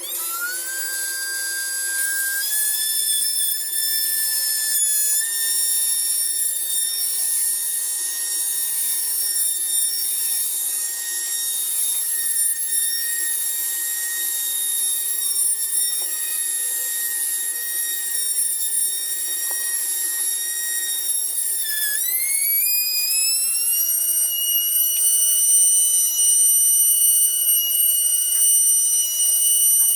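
Homemade CNC router's spindle motor running with a steady high whine as it cuts wood, its pitch creeping up in the first seconds. About 22 seconds in the whine dips briefly, then rises and settles at a clearly higher pitch.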